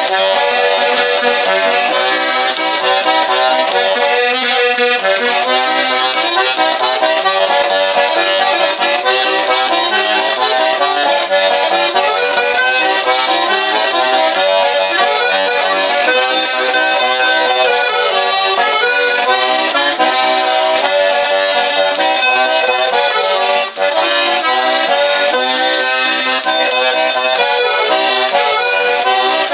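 Organetto, the small Italian diatonic button accordion, playing a continuous tune with melody and accompaniment, with a brief drop in level about three quarters of the way through.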